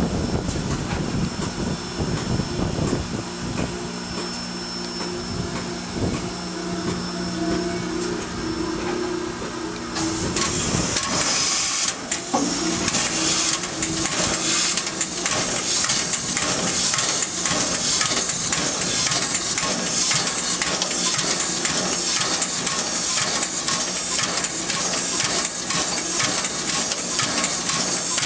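A live N&W J-class 4-8-4 steam locomotive's steam-driven pump and its fittings. At first there is a steady hum. About ten seconds in, loud steam hissing starts, with rapid, irregular knocking over it.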